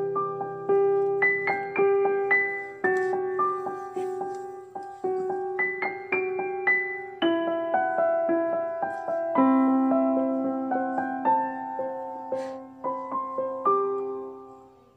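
Background piano music: a gentle melody of struck notes over sustained chords, each note ringing and decaying. It fades out near the end.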